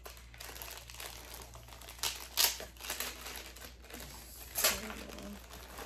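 Packaging wrapper crinkling and rustling as it is worked off a small camera accessory by hand, with louder crackles about two and four and a half seconds in.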